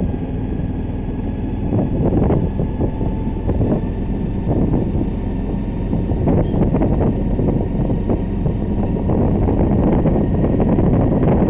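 Wind rushing over the microphone of a phone held out of a moving road vehicle, mixed with the steady rumble of the vehicle and its tyres on the road.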